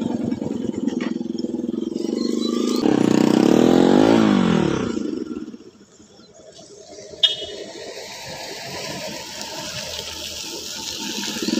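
Motorcycle engine running as it is ridden along a dirt track, revving up and back down about three to five seconds in. The sound then drops away sharply, leaving a quieter steady engine hum with a single click.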